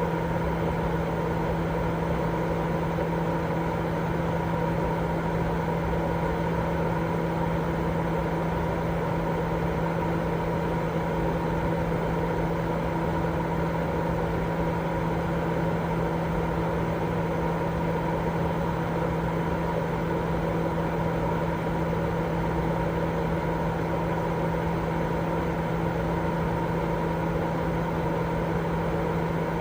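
Steady, unbroken white noise for baby sleep: a constant hiss with a low hum running under it, never changing in level.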